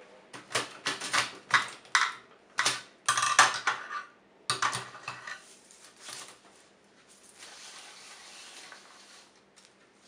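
Hard plastic-and-metal clattering from an Olivetti Lettera 25 portable typewriter as the black straps wrapped around it are yanked off, rattling its body and keys in about a dozen sharp clacks over five seconds. A steady hiss follows for about a second and a half near the end.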